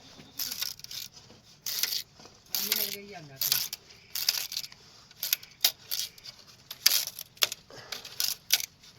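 Irregular clinks, clatters and rustling, with a few sharp clicks near the end and a brief faint voice about three seconds in.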